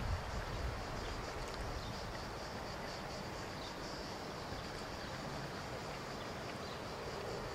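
Faint, steady rumble of a distant SBB/RegionAlps RBDe 560 'Domino' electric multiple unit running along the line.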